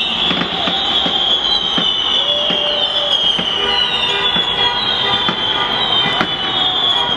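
Celebration street din: fireworks cracking and popping, car horns honking in short blasts, and people shouting, over a loud high shrill tone that slowly falls in pitch.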